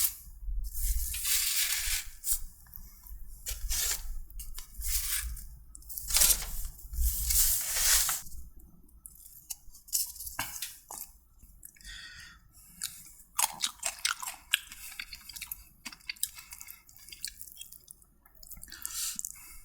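A person chewing and crunching hot butter cuttlefish close to the microphone, with wet mouth sounds. The crunching is loudest in the first eight seconds and softer after.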